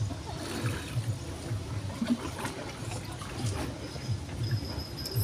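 River water trickling and flowing, with soft low bumps underneath.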